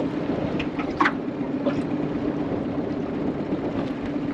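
Outboard motor idling at trolling speed, a steady low hum under wind and water noise, with a sharp tap about a second in.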